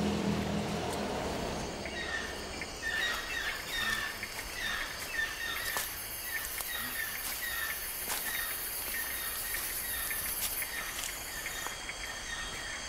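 Tropical forest ambience: insects calling steadily, with a short chirp repeating about twice a second and a high insect hiss between about six and ten seconds in.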